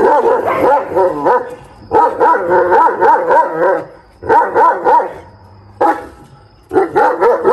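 Dogs barking and yelping in a series of bursts, each lasting up to about two seconds, with short pauses between them.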